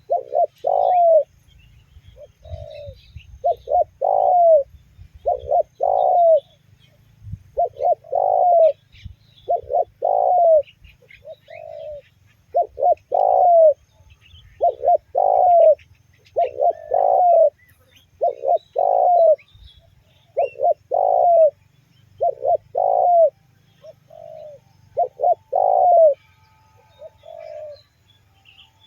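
Spotted dove cooing over and over, each phrase a few short coos ending in a longer one, repeated about every two seconds. Faint chirps of small birds sound in the background.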